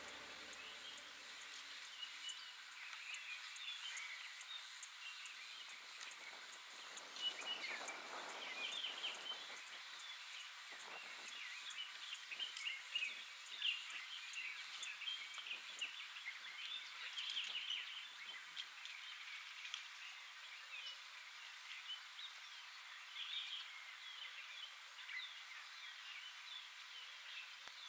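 Small birds chirping and calling over faint outdoor ambience, with soft rustling now and then in the first half.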